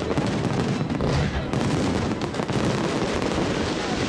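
Fireworks display: many shells bursting overhead in a dense, continuous run of bangs and crackles.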